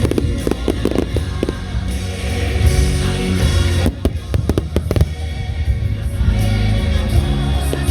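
Fireworks bursting and crackling in clusters, about half a second in and again around four seconds in, over a song with singing.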